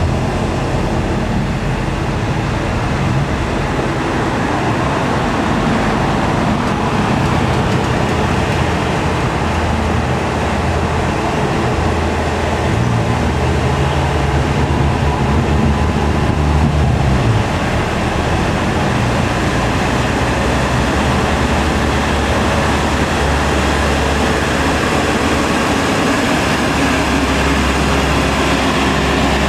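Heavy diesel truck engines running under load on an uphill road, with steady road noise. Midway, one engine note rises for a few seconds, then drops away.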